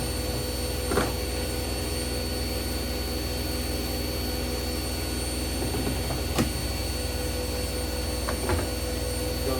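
Front-loading washing machine on a high-speed final spin: a steady motor hum and whine, with a few short knocks about a second in, in the middle and near the end.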